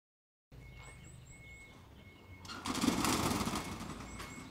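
Small birds chirping in short, high rising notes over quiet rural ambience, with a loud rattling rumble starting about two and a half seconds in and lasting over a second. The sound begins only about half a second in, after silence.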